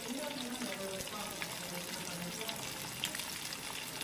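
Flour-dredged white snapper deep-frying in hot oil in a cast-iron skillet: a steady sizzle with scattered small crackles and pops.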